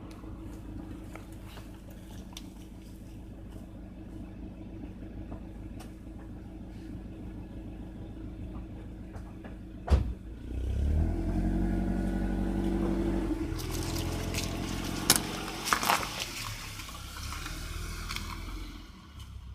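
BMW E36 four-cylinder M44 engine with its catalytic converters removed, idling steadily for about ten seconds. After a sharp click it is revved up, the pitch climbing and getting louder, with two sharp cracks near the peak, then it drops back toward idle near the end.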